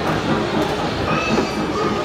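Mini train ride rolling through a shopping mall: a steady rumble from its wheels and motor, with mall background noise.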